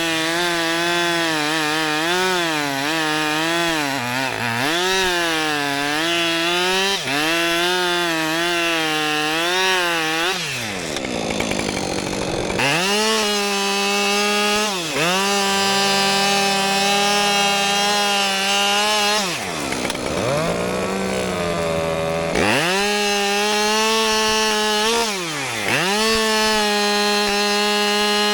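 Two-stroke chainsaw cutting wood at full throttle, its engine speed wavering under load for about ten seconds. After that it runs in steady full-throttle stretches, and the throttle is let off and opened again several times, so the pitch falls and climbs back.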